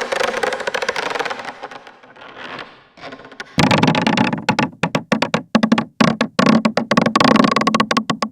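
Wooden stairs creaking under weight. One long crackling creak fades out about two seconds in. About three and a half seconds in, a louder, lower creak starts and stutters in quick pulses.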